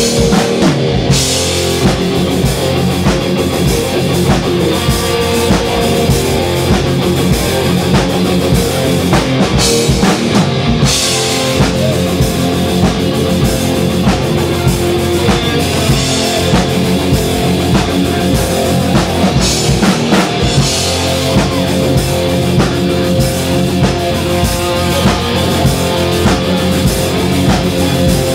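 Heavy metal band playing live: distorted electric guitar, bass guitar and a drum kit.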